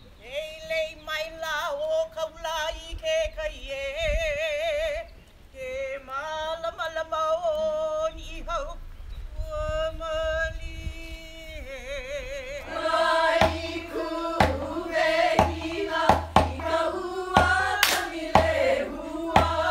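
Women chanting a Hawaiian oli, long held tones with a rapid quavering vibrato. About thirteen seconds in, the chanting becomes rhythmic and fuller, beaten out on an ipu heke double-gourd drum with regular low thumps and slaps.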